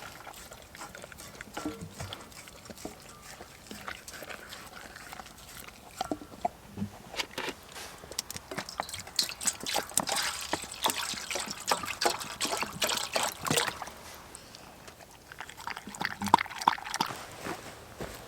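Labrador eating wet dog food, meat chunks in gravy, from a bowl: a rapid run of clicks and smacks of chewing and licking, heaviest from about six to fourteen seconds in and again briefly near the end.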